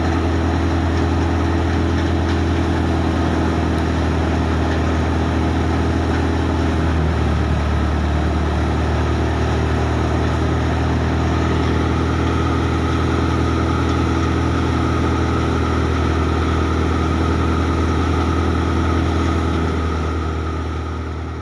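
Al-Ghazi tractor's diesel engine running steadily under load, driving a mustard thresher, with the thresher's drum and blower turning over at a constant speed. The sound fades out near the end.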